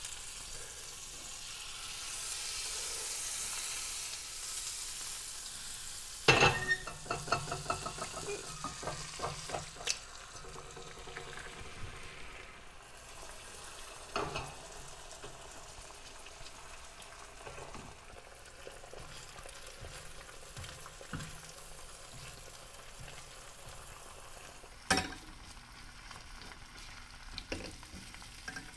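Butter sizzling in a hot nonstick frying pan, then eggs going in: a sharp crack about six seconds in followed by a few seconds of louder rapid crackling, after which the eggs keep frying steadily. A few more single sharp knocks come later.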